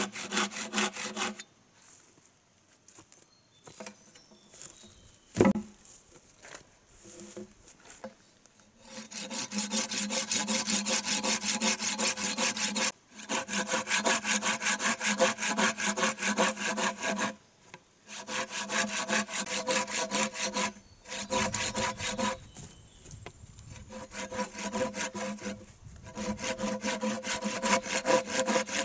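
Hand saw cutting through a bamboo pole in runs of fast back-and-forth strokes, with a steady ringing note under the rasp. The sawing stops for several seconds near the start, with a single knock, then pauses briefly a few more times.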